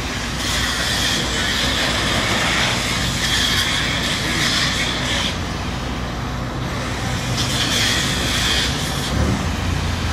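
Mobile crane's diesel engine running steadily, with a high hissing whine laid over it twice, for about five seconds from the start and again for about two seconds near the end.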